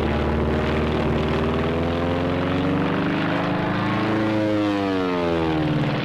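Propeller airplane engine droning steadily, its pitch rising and then falling about four to five seconds in.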